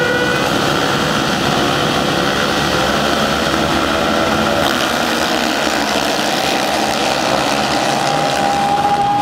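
A grid of supermoto racing motorcycles running their engines together, with a slowly rising engine note in the last few seconds as the pack pulls away from the start.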